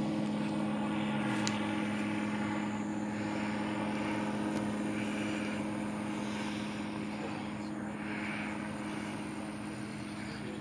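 Small propeller airplane's engine running with a steady drone that slowly grows fainter.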